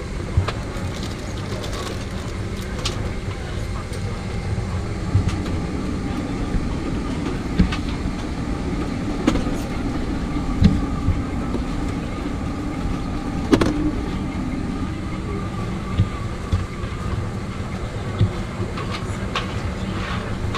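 Airliner cabin ambience: a steady hum of the ventilation system with a low constant tone, broken now and then by a few sharp knocks and clicks.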